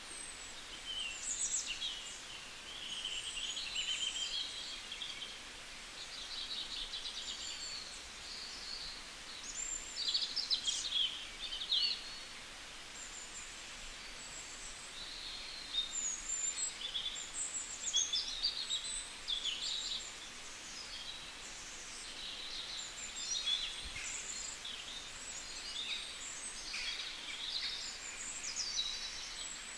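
Several birds chirping and calling in short, quick phrases and trills, one after another, over a faint steady background hiss.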